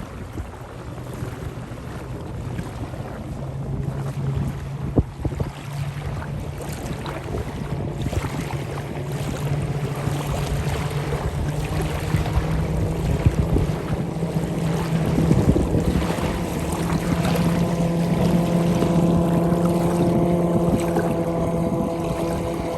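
A motorboat engine drones steadily, growing louder and rising a little in pitch as it comes closer, over the wash of river waves and wind on the microphone.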